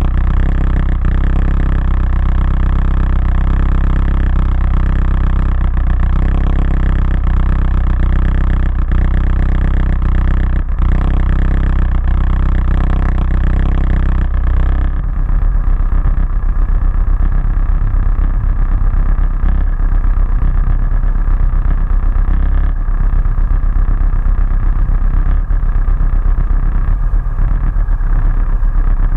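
Motorcycle engine idling steadily for about the first half. About halfway through the note turns rougher and less even as the bike pulls away slowly.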